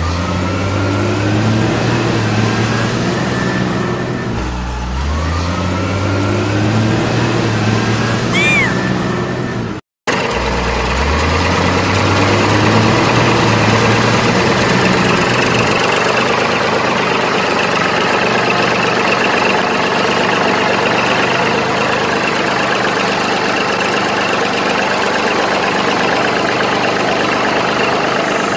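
Vehicle engine revving up several times, its pitch climbing in steps as if through gears, with a brief break about ten seconds in; after that it runs on steadily.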